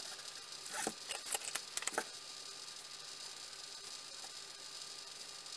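A few short scratches and clicks of a pen and marker being handled and drawn on a wooden axe handle, bunched about a second in; after that only a faint steady hiss with a thin hum.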